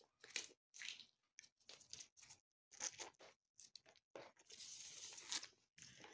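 Fresh broad-bean (fava) pods being snapped and split open by hand: a string of short, crisp cracks and tearing sounds, with a longer rustle of the pods being handled about four seconds in.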